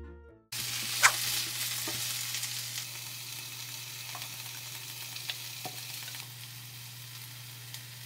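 Fruit syrup being poured from a glass jar through a cloth into a glass: a steady hiss over a low hum, with a few light glass clinks, the sharpest about a second in. It starts about half a second in, after a moment of silence.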